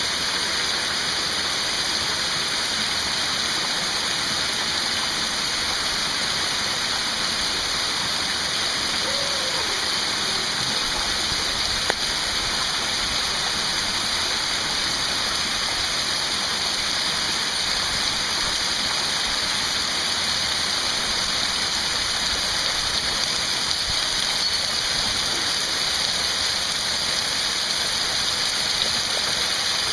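Canyon waterfall pouring over rock into a pool: a steady rush and hiss of falling water and spray, with one brief click about twelve seconds in.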